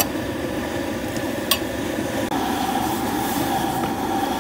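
Gas burner running steadily under a large iron wok of water heating for blanching, with two sharp clinks of a steel ladle against the glass bowl and wok as raw chicken feet are tipped in. A little past halfway a higher steady tone joins the burner noise.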